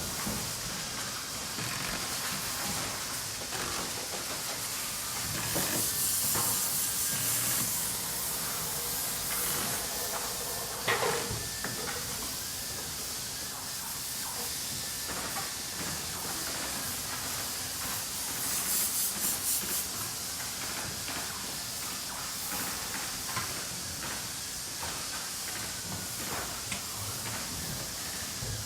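Factory machinery ambience: steady mechanical noise and hiss scattered with small clicks and knocks. Two louder spells of pulsing hiss come about six and nineteen seconds in, and a sharp clank with a brief ring comes about eleven seconds in.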